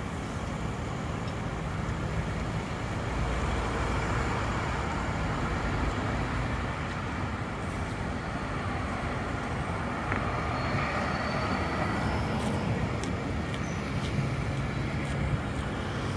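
Steady city traffic noise mixed with a red double-deck regional train rolling slowly across a railway bridge.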